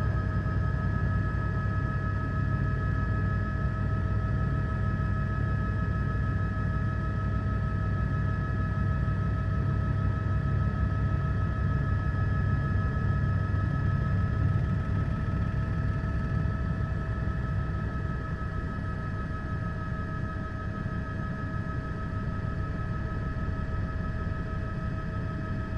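News helicopter's engine and rotor noise: a steady low rumble with a constant high whine over it.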